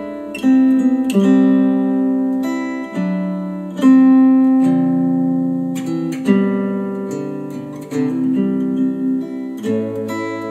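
Acoustic guitar music played back through KEF R3 bookshelf speakers driven by a NAD C 388 amplifier. Chords are struck about once a second and each rings on until the next.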